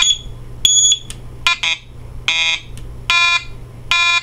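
Homemade electronic sound-effects circuit giving short buzzy electronic beeps, about one every 0.8 seconds, their tone changing from beep to beep, over a steady low hum.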